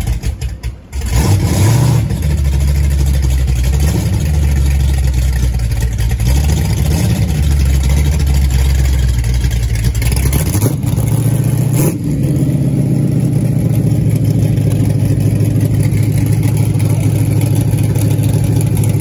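Monster-truck ride truck's engine running loud under way, its note shifting up and down a few times as it drives, with a brief drop under a second in.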